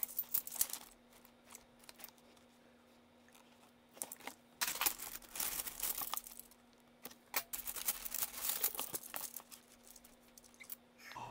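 Plastic coin bag crinkling and half-dollar coins clicking against each other in irregular bursts as gloved hands dig handfuls out of the bag. There is a near-silent stretch about two to four seconds in.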